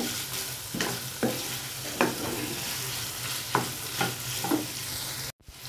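Wooden spoon stirring fried liver and tomatoes in an aluminium pan, over a steady sizzle of frying. The spoon knocks and scrapes against the pan about seven times at uneven intervals. The sound cuts out briefly near the end.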